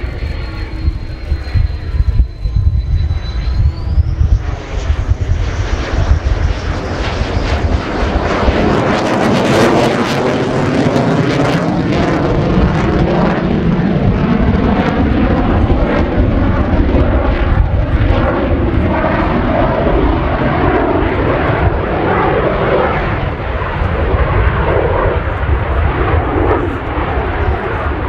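Mitsubishi F-15J Eagle's twin turbofan engines at display power as the jet passes: a high whine that climbs sharply in pitch about four seconds in, then a loud, rough jet rumble with crackle from about eight to twelve seconds, its tone sweeping as the jet moves across the sky.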